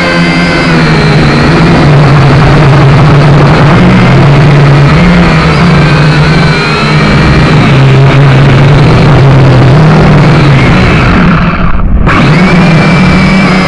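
Quadcopter drone's electric motors and propellers, heard up close through the drone's own camera: a loud, steady hum with a whine above it, stepping up and down in pitch as the throttle changes.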